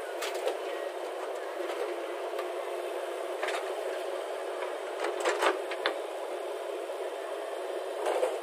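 Diesel engine of earthmoving machinery running steadily, heard thin with no low rumble. Sharp clanks come about three and a half seconds in, in a short cluster around five seconds, and again near the end.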